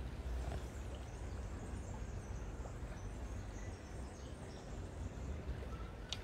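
River water rushing steadily with a low rumble, faint high bird chirps through the middle, and one short sharp click near the end.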